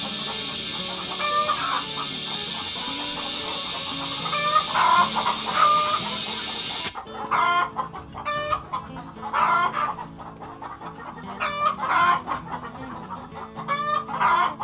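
Steady hiss of air at a tire with a broken bead being aired up, cutting off suddenly about seven seconds in. Chickens cluck throughout.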